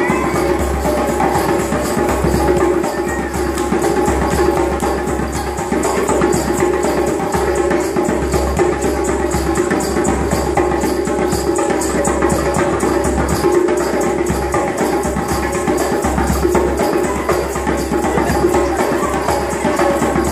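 Busker's percussion music: a djembe-style hand drum beaten in a fast, steady rhythm, with other percussion and a sustained pitched backing underneath.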